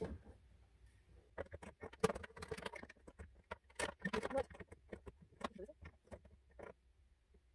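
Irregular light clicks, taps and rattles of hard plastic as the egg-turner racks and rail of a Brinsea Ovation 56 incubator are handled and fitted into its plastic base, starting about a second in.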